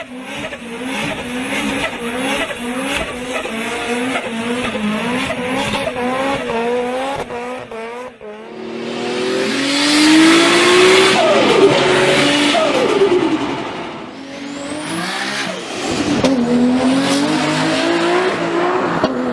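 Turbocharged performance car engine revving in short, repeated rising pulls. About eight seconds in, after a cut, tyres squeal loudly over a revving engine, and near the end the engine pitch climbs again.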